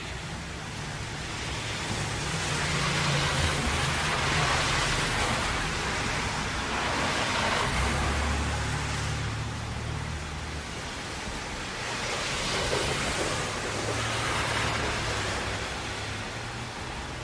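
Traffic on a rain-soaked road: a steady hiss of rain and tyres on wet pavement, swelling and fading several times as vehicles pass, over a low engine rumble.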